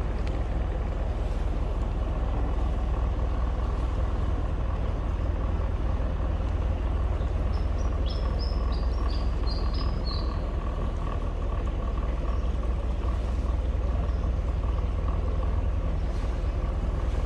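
Tour boat's engine running steadily on a canal, a constant low drone with a steady hum. About eight seconds in, a brief run of high chirps sounds over it.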